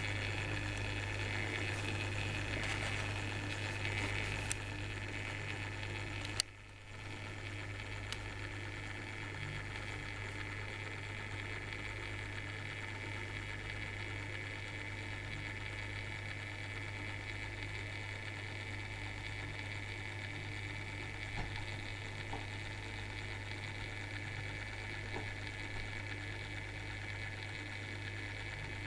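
Steady low hum with an even hiss from the small motor of a rotating LED display base turning a glass crystal, with one sharp click about six seconds in.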